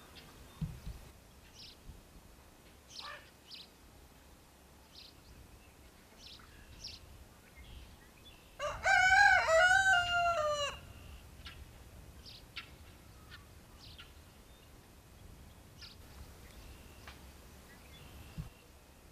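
A rooster crows once near the middle, a wavering call of about two seconds. Faint short chirps come and go around it.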